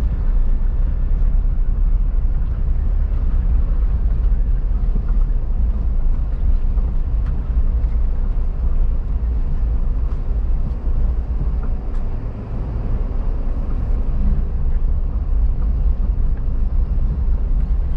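Wind buffeting the camera microphone: a steady low rumble, easing briefly about twelve seconds in.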